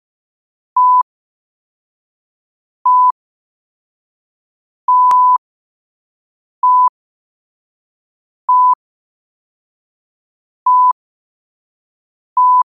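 Electronic beep of a single steady pitch, sounding short and clean about every two seconds with dead silence between, seven times in all. The beep about five seconds in is longer and starts with a sharp click.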